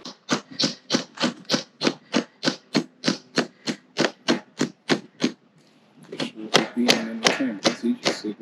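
Rapid, evenly spaced hard knocks, about three a second for some five seconds, then a pause and a few more irregular knocks.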